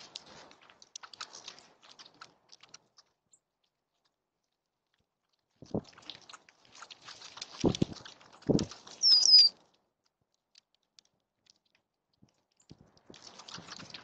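A flock of blackbirds crowding tube seed feeders: scattered ticks and taps of beaks and feet on the feeders and a few low thumps as birds land and flap, in two bouts with a lull between. About nine seconds in comes one short, high whistled call that falls in pitch, the loudest sound.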